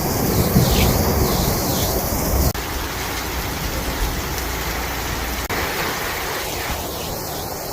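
Heavy rain pouring down in a steady hiss, with gusts of wind buffeting the microphone and rumbling for the first five seconds or so.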